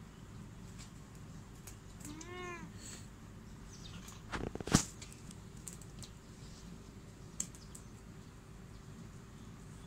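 A kitten gives one short meow about two seconds in, rising then falling in pitch. About halfway through there is a single loud knock, with faint scattered clicks around it.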